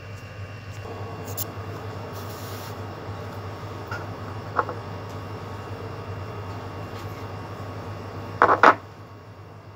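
Steady background hum, with a small click about halfway and two quick knocks near the end as a small glass paint bottle and brush are handled at a table.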